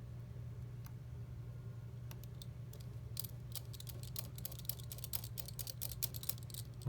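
Quick runs of small, sharp clicks and taps as small parts of an iPhone 11 are handled and pressed back into place, thickening about two seconds in, over a steady low hum.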